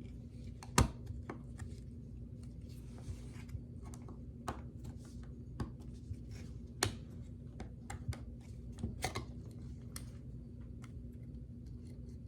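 Scattered light clicks and taps of small plastic impact-driver parts being handled and fitted together, the sharpest about a second in, over a steady low hum.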